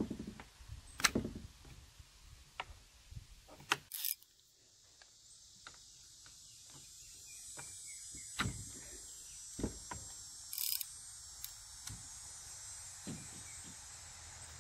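Scattered clicks and light metallic clinks as hands work at the spark plug of a Suzuki 2.5 hp four-stroke outboard, taking the plug out. A steady high hiss sets in about five seconds in.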